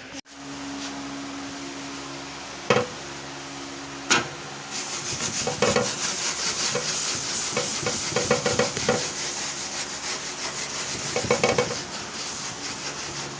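Meat sizzling and crackling on a hot charcoal grill grate, starting about five seconds in and going on steadily, after two sharp knocks.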